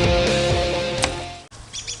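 A hard-rock song ends on a held chord that fades and then cuts off about one and a half seconds in. Right after, birds chirp in a run of short, quick calls.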